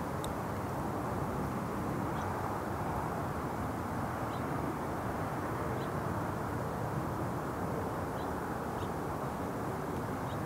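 Steady outdoor background rumble and hiss with no change in level, with a few faint, short high chirps scattered through it.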